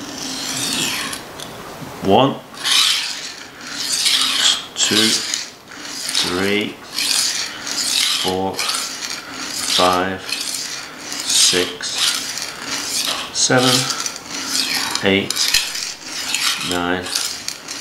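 Steel knife edge being stroked back and forth across an oilstone, a run of repeated swishing, rasping strokes. The blade is held at roughly 22–25 degrees on its second side to hone a fine edge and raise a burr.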